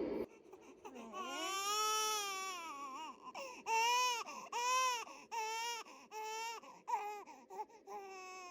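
Baby crying: one long wail starting about a second in, then a run of shorter rising-and-falling cries that become briefer toward the end.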